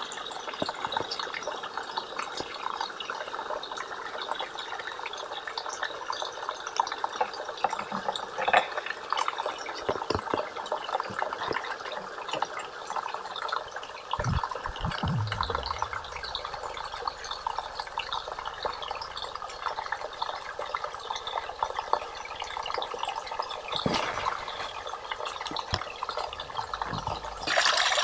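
Water of a small stream trickling and running steadily, with a few knocks along the way.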